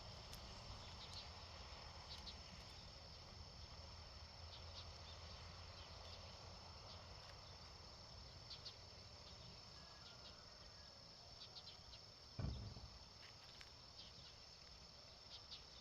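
Faint, steady, high-pitched insect chirring in the countryside, with scattered soft ticks. A single low thump about twelve seconds in.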